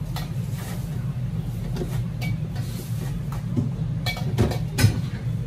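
Steady low drone of commercial kitchen equipment at a wok station, with scattered clinks and clanks of metal cookware and utensils. A cluster of sharper clatters comes about four seconds in, the loudest one near the end.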